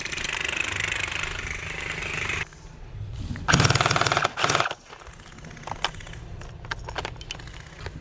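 Electric gel blasters firing full-auto: a rapid rattling burst lasting about two and a half seconds, a second, louder burst of about a second shortly after, then scattered single clicks.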